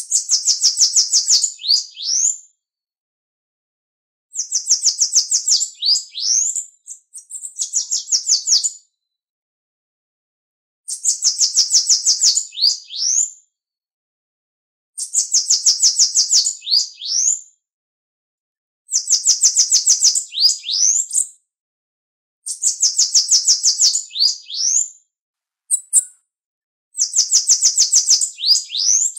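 Bananaquit (Coereba flaveola) singing: a rapid, high, buzzy trill of ticking notes that ends in a few quick rising notes. The song is repeated about eight times, with clean silences of a second or two between songs.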